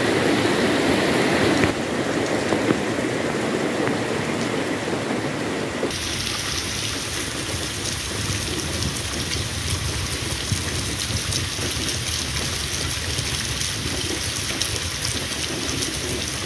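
Heavy rain falling on flooded paving, with rainwater running and splashing. The noise changes abruptly twice, about two and six seconds in, and has a low rumble underneath after the second change.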